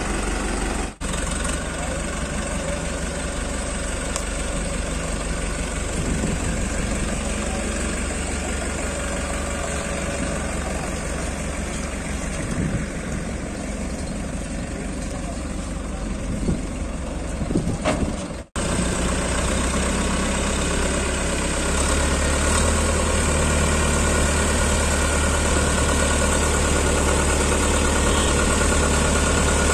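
Modified Farmtrac 6055 diesel tractor engine running steadily while the tractor idles and drives about. The sound drops out briefly twice, about a second in and about two thirds of the way through, and is a little louder after the second break.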